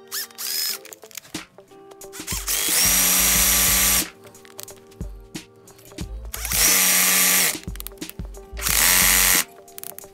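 Cordless drill/driver with a screwdriver bit run in short bursts, the longest about a second and a half, driving against a seized screw to free it. Background music with steady tones plays underneath.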